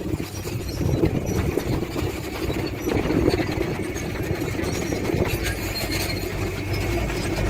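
Diesel engine of heavy earthmoving machinery, a bulldozer or dump truck, running steadily with a low rumble.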